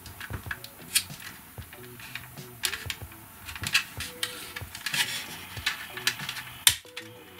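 Plastic housing of a smoke detector being pried apart at its snap clips: irregular small clicks, taps and scrapes of plastic, with a few sharper clicks among them.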